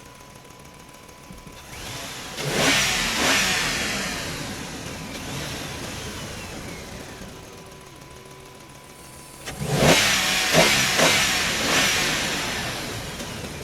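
Two bursts of motor sound from radio-controlled construction toys, about two seconds in and again near ten seconds; each starts sharply with whining pitch glides, then fades over a few seconds. A faint steady high tone runs underneath.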